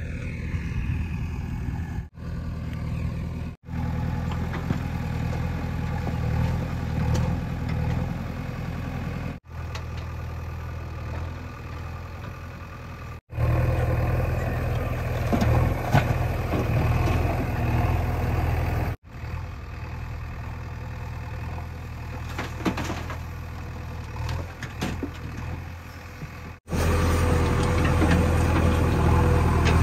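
JCB 3DX backhoe loader's diesel engine running while it works, a steady low engine hum that changes level abruptly several times with brief dropouts, and is louder and steadier near the end.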